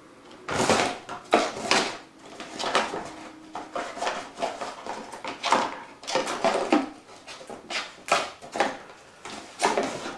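Kittens playing on a sheet of clear plastic and a cardboard box: the plastic crinkles and rustles and claws scrabble on the cardboard in a string of irregular crackly bursts.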